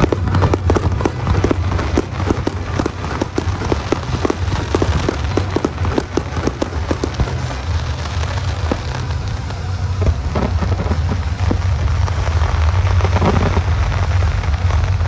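Fireworks crackling and popping in rapid runs for the first several seconds, then thinning out to scattered pops, over a steady low rumble.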